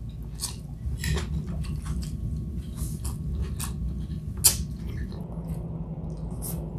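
Close-up mouth sounds of a person chewing and biting a mouthful of milkfish: wet smacks and short clicks, with one sharper click about four and a half seconds in, over a low steady hum.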